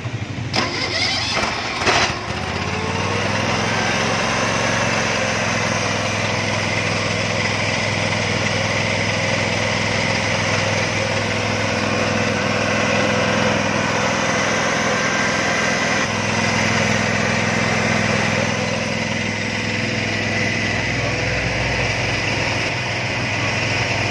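Stanley hydraulic power unit's engine started with the ignition key: it cranks briefly, catches about two seconds in, then runs steadily.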